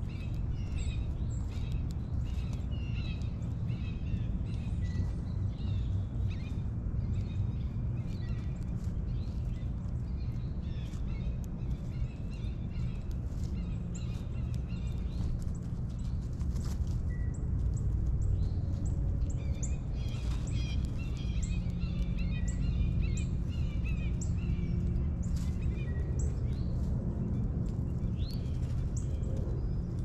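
Small songbirds chirping and calling over and over, many short high notes overlapping, over a steady low outdoor rumble with a faint hum.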